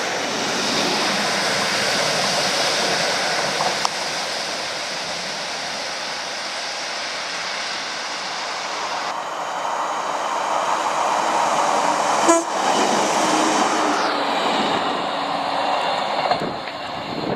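Passing train: a steady rushing of wheels and air, with a short sharp click about twelve seconds in; the rush loses its hiss about fourteen seconds in.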